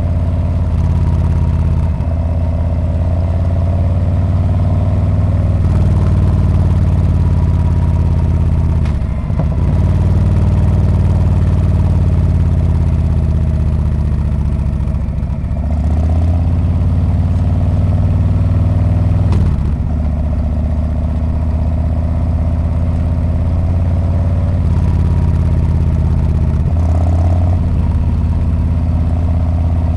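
Harley-Davidson Street Bob's V-twin engine and exhaust running under way, a steady low engine note that dips briefly a few times.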